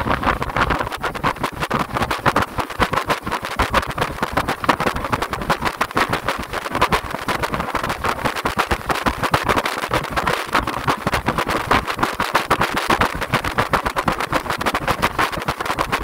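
Small fishing speedboat (tarrad) running under way, its engine noise mixed with wind buffeting the microphone in rapid, uneven gusts.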